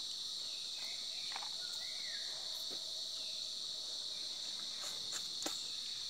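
Steady, high-pitched chorus of insects such as crickets, running unbroken, with a few faint clicks.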